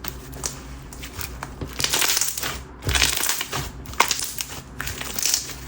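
Hands kneading and mixing a thick coated clear slime with a lightweight mulch topper worked into it: irregular wet crackles and squishes, which the owner says make the slime gritty and trap more air.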